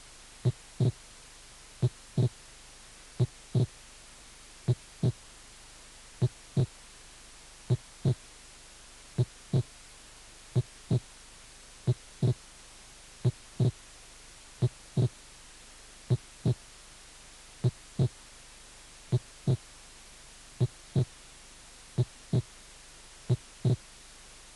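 Heart sounds on an auscultation recording: a slow, regular rhythm of paired beats, the first and second heart sounds, repeating about every 1.4 seconds. The example is physiological splitting of the second heart sound, which normally widens on inspiration and narrows on expiration.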